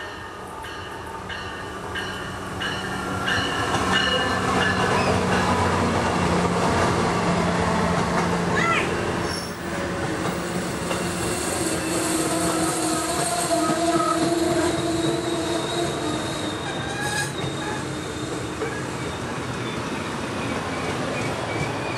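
A MARC MP36PH-3C diesel locomotive passes close by at speed, its engine humming steadily, followed by its double-deck passenger coaches rolling past with continuous wheel-on-rail noise. It grows louder about four seconds in and stays loud, with steady high whines midway as the coaches go by.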